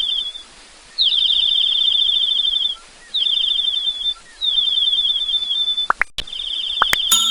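A high, rapid trill repeated four times in bursts of about one and a half to two seconds, with short gaps between, and a few sharp clicks near the end.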